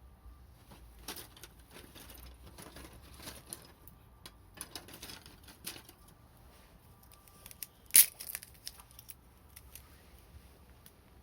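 Wood fire crackling: irregular small snaps and clicks, with one loud pop about eight seconds in.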